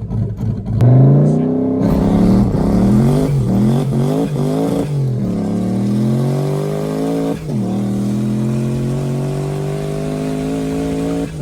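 Single-turbo LS V8 engine in a BMW 1 Series launching and accelerating hard. The engine note climbs steadily and drops back at each upshift, several times through the gears, getting louder about a second in.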